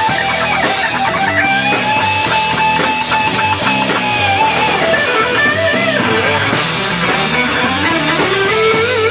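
Hard rock band playing, led by an electric guitar holding long bent notes with wide vibrato over bass and drums.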